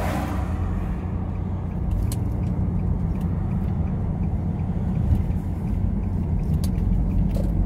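A car's engine and road noise, heard from inside the cabin as it pulls away and turns: a steady low rumble with a few faint clicks.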